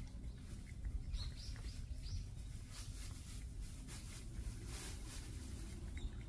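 Street cat eating wet food from a bowl: soft clicks of chewing, over a low outdoor rumble with a few faint bird chirps about a second and two seconds in.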